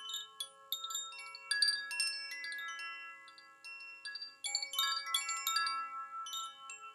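Zaphir summer chime ringing, its tuned rods (G sharp, B, C, C sharp, E and A) struck in two clusters of light strikes, about half a second in and again past the middle, with many clear overlapping tones ringing on between them.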